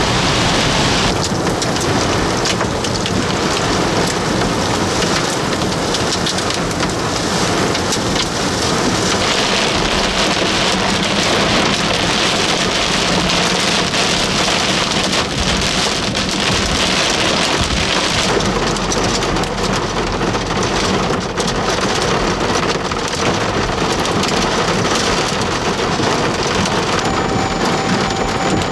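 Heavy rain pelting a car's windshield and roof, heard from inside the cabin as a dense, steady hiss with many fine patters.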